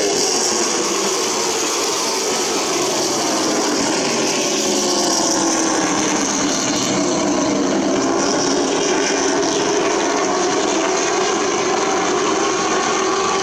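Short-track stock car engines running hard in a race, their pitch slowly rising and falling as the cars lap the oval.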